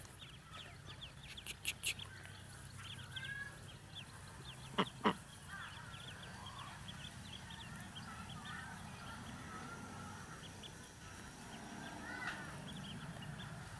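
A large brood of ducklings peeping without pause, many high, rapid cheeps overlapping. Two sharp clicks come about five seconds in.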